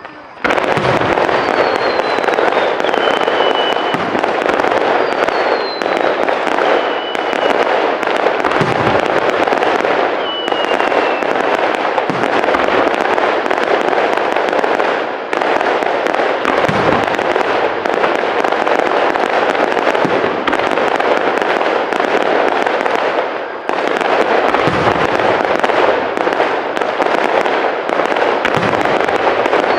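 Fireworks display: dense, continuous crackling of many shells bursting at once. Deep booms come every few seconds, and a few high whistles fall in pitch.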